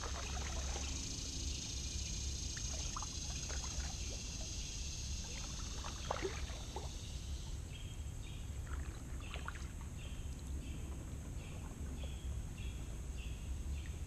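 Kayak paddle strokes: the blade dipping and dripping water in scattered small splashes, over a steady low rumble and a steady high hiss. About halfway through, a short high call starts repeating roughly twice a second.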